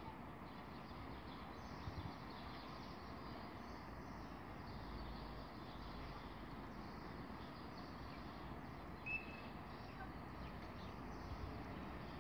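Faint, steady rumble of a regional train of n-Wagen ('Silberling') coaches approaching at a distance, with one short bird chirp about nine seconds in.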